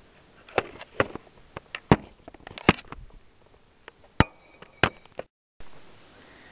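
A series of sharp clacks and knocks, about a dozen in five seconds, from the plastic and metal parts of a nitro RC truck being handled as its engine unit is taken off.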